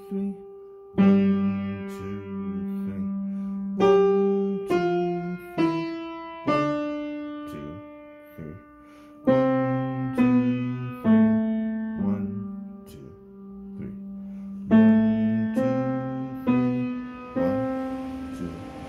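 A slow, simple piano piece played with both hands: notes struck one or two at a time and left to ring and fade, ending on a long held note.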